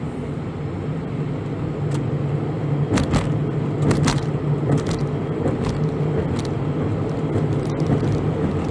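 Steady road and engine noise heard inside a van cruising on a highway, a low even hum, with scattered sharp clicks or rattles, the loudest about three and four seconds in.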